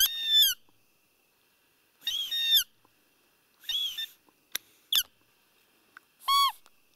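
Roe deer call (a hunter's squeaker) blown in six short, high-pitched piping squeaks, each rising and falling in pitch. The last one is lower. It imitates a roe doe's piping to lure a rutting buck.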